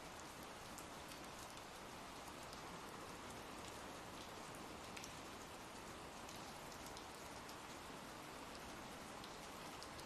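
Faint, steady rain ambience: an even hiss of falling rain with a few light drop ticks.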